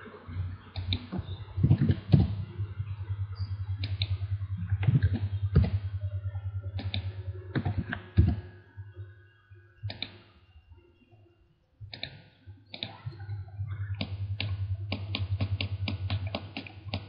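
Computer keyboard typing and mouse clicks: scattered taps, then a quick run of keystrokes in the last few seconds. Under them runs a steady low hum that cuts out for a second or two past the middle.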